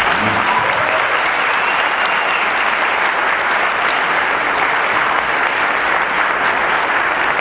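A large theatre audience applauding, a dense, steady clapping that holds at one level.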